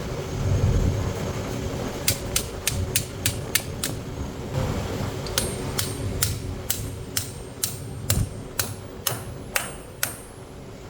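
Hammer striking steel in two quick runs, each blow sharp with a short metallic ring. The first run of about nine blows is rapid, around five a second; after a pause of about a second and a half, a slower run of about fifteen blows follows at roughly three a second. A steady low hum runs underneath.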